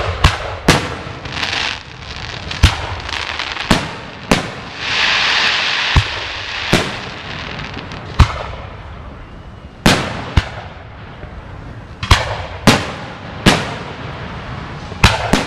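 Aerial fireworks shells bursting overhead: a dozen or more sharp booms at uneven intervals, with a stretch of hiss about four to six seconds in.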